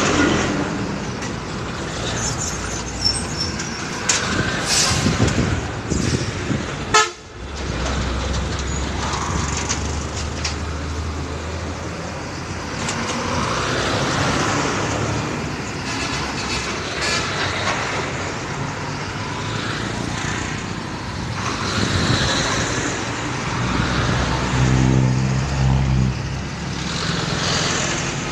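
Heavy diesel trucks passing close by, engines running over steady road and traffic noise, with a vehicle horn sounding.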